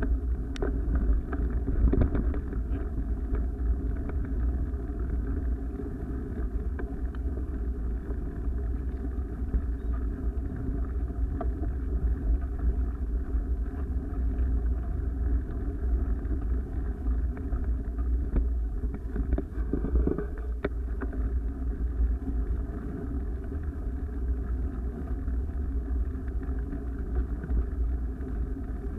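Steady, muffled rumble of wind and movement on a camera travelling along a dirt trail, with a few light knocks, the strongest about twenty seconds in.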